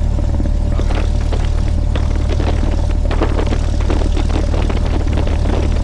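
Light airplane's piston engine and propeller running at low taxi power, a steady low drone.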